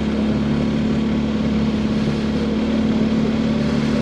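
Engine of a motor vehicle running steadily at an even pitch while it drives slowly along a road.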